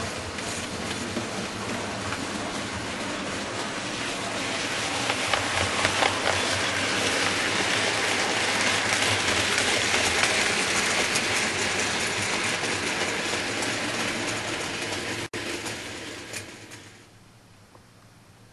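OO gauge model trains running on the layout, the wheels rattling and clicking over the track. The sound grows louder as a rake of wagons passes close, then dies away near the end.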